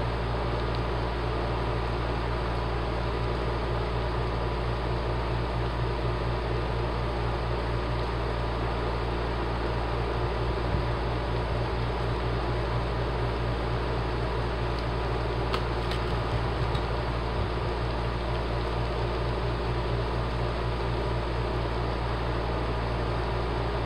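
Model coal train's hopper cars rolling steadily along the track, a constant whirring hum of wheels on rails, with one brief click about two-thirds through.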